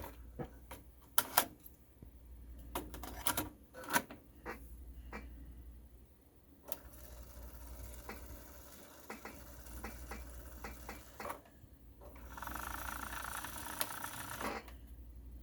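Nakamichi 580 cassette deck's tape transport being operated: a series of sharp mechanical clicks from the controls and mechanism, then the motor and tape running with a steady whir, louder for about two seconds near the end.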